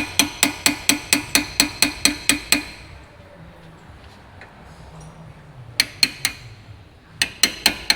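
Hammer and punch tapping out the pad retaining pins of a Brembo front brake caliper: quick ringing metal strikes, about four a second. They pause for a few seconds, give two strikes, then resume near the end.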